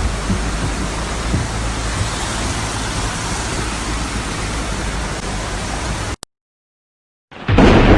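Floodwater rushing down the road as a steady roar of noise that cuts off dead about six seconds in. After about a second of silence, a much louder blast of noise begins near the end.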